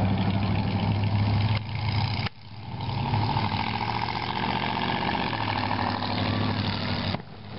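A motor engine running steadily at idle, a low even hum. The sound breaks off briefly about two seconds in and again near the end.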